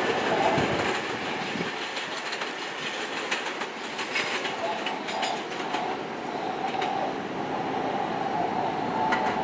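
New York City subway trains, an R160 and an R68, rolling slowly into the station over switches. The wheels click over rail joints now and then, most around the middle and near the end, over a steady wavering whine.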